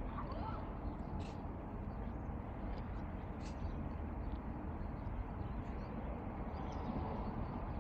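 Birds giving short, high chirps every second or so over a steady low rumble of city traffic.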